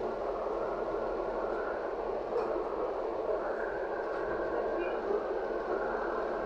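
Steady running noise of a LiAZ-5280 trolleybus in motion, heard from inside the passenger cabin.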